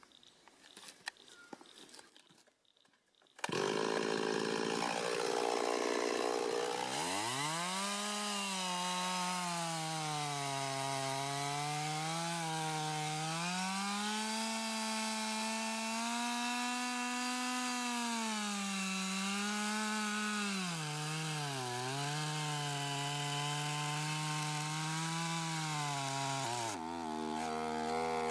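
Two-stroke chainsaw cutting a billet from a tree trunk. It comes in abruptly about three and a half seconds in after a few faint clicks. The engine note dips and recovers again and again as the chain bogs under load in the wood, then drops lower near the end and climbs again.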